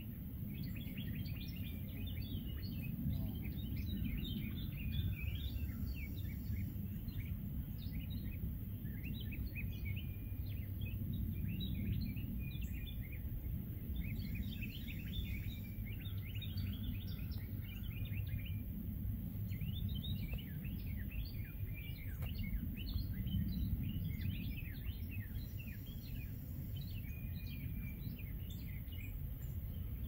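Several songbirds singing, with many quick overlapping chirps and short trills throughout, over a steady low rumble.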